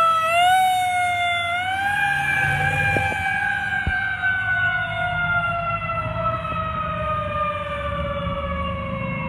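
Heavy rescue fire truck's siren wailing, its pitch falling slowly and steadily over several seconds as the truck drives away, over a low rumble.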